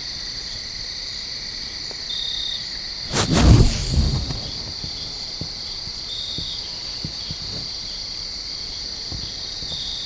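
Steady evening insect chorus of crickets, with a short high chirp repeating about every four seconds. About three seconds in, a brief loud low thump and rustle cuts across it for about a second.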